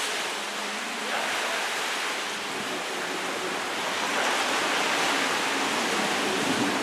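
Steady rush of the open sea, waves and water running past a cruise ship in rough weather, an even hiss with no distinct splashes.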